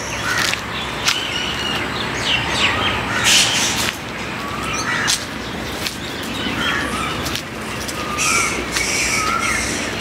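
Birds chirping: short, repeated calls that rise and fall in pitch, scattered throughout, over faint crunching of steps on dry leaves and dirt.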